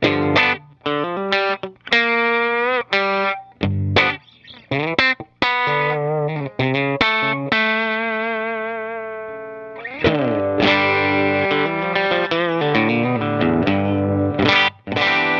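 Electric guitar riffs played through a JHS Pulp 'N Peel V4 compressor pedal. Short chopped chords and single notes with vibrato give way to one long sustained note that fades slowly, then full chords come back in about ten seconds in.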